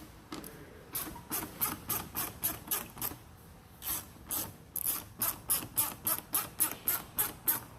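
Hand ratchet wrench on a long socket extension being swung in quick strokes on a bolt, its pawl clicking about three to four times a second. The run pauses briefly near the middle, then picks up again a little faster.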